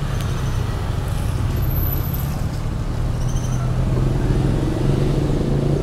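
Car engine and road noise heard from inside the cabin while driving slowly along a town street: a steady low hum, the engine note lifting slightly about four seconds in.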